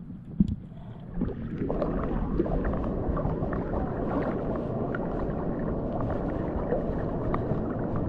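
Water splashing and churning close to the microphone as someone swims, starting about a second in, with scattered small clicks and knocks.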